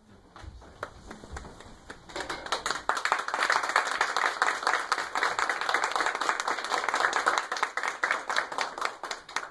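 Audience clapping: a dense run of many hands that swells in about two seconds in, holds loud, and dies away near the end.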